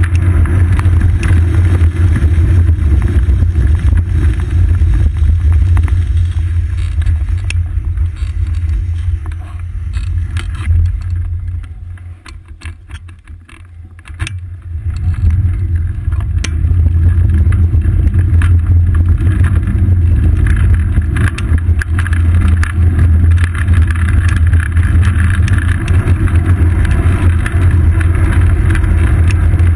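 Wind rush and road rumble picked up by a seat-post-mounted GoPro Hero 2 on a moving road bicycle, a heavy steady low rumble. It dies down for a few seconds near the middle as the bike slows through an intersection, then builds again as it picks up speed.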